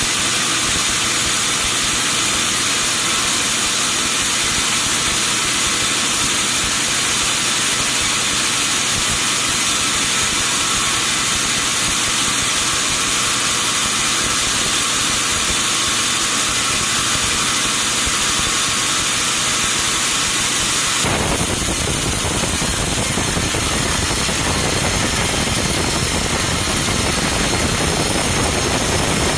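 Sawmill machinery running steadily, a loud hissing mechanical noise. About three-quarters of the way through it changes abruptly to a fuller, deeper machine noise.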